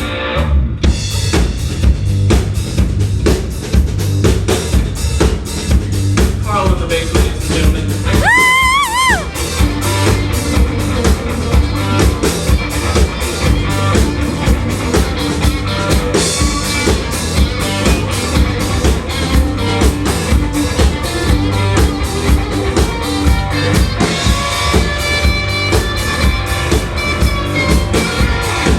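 Rock band playing live: a drum kit driving a steady beat with bass and electric guitar, and a held note bending up and down about eight seconds in.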